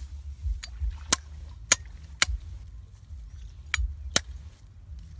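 Machete blade chopping into hard dry ground: a series of sharp, short strikes, four in the first half and two more near the end.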